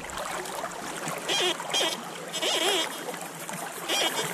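Creek water trickling and splashing around a gold pan as it is dipped and worked in the stream, over the steady flow of the creek.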